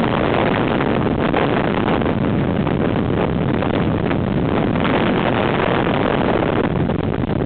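Steady rush of wind over the microphone of a camera mounted on a motorcycle riding at road speed, with the bike's engine running underneath.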